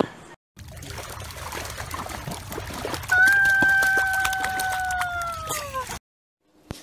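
Splashing in shallow water, then a single long, high cry held steady for nearly three seconds and falling in pitch at the end, from a Yorkshire terrier standing in the water.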